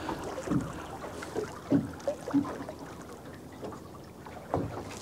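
Water lapping and slapping against a small boat's hull in irregular soft knocks, with light wind on the microphone.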